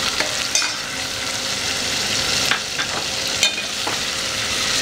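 Freshly added tomatoes, onions and bottle gourd sizzling in hot oil in a metal pot as a spoon stirs them. A few sharp clicks come from the spoon striking the pot.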